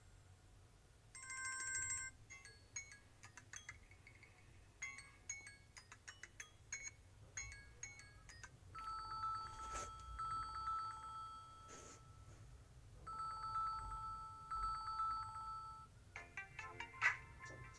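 Mobile phone ringtones playing one after another. First comes a tune of short, plucked-sounding notes. Next a trilling ring of two held tones sounds twice with a short gap, and another quick melody starts near the end.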